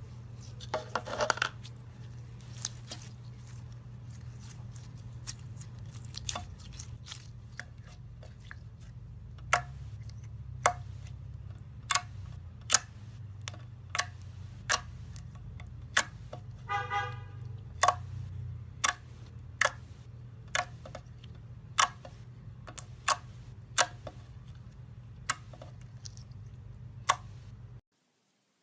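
Glitter slime being handled, giving sharp clicking pops roughly once a second, with a short squeak about two-thirds of the way through, over a steady low hum.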